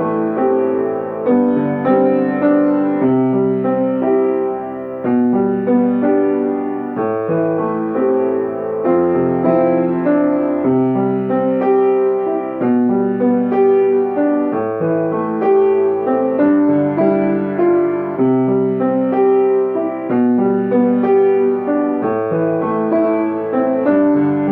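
Piano playing a gentle piece in 3/4 time, its notes and chords struck at a steady, even pulse.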